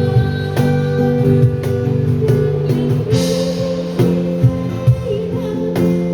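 Live band playing a pop song: guitar with drums keeping a steady beat, and a cymbal crash about three seconds in.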